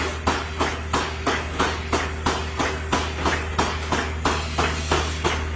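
Goat milking machine running: pulsators beating in a steady rhythm, about four beats a second, over the steady hum of the vacuum pump.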